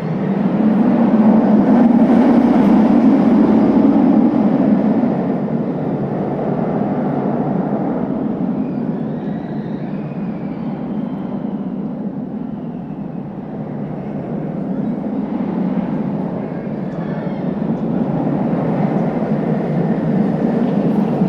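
Scream!, a steel floorless roller coaster, with its train running along the track: a loud roar that swells in at the start and is loudest for the first few seconds as the train passes close, then carries on a little lower and swells again near the end.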